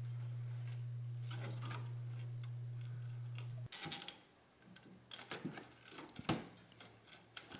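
A plastic wire tie being fastened around a brake caliper hung in a wheel well: several clusters of small ratcheting clicks and rustles of hands on the metal parts. A steady low hum stops suddenly about halfway through.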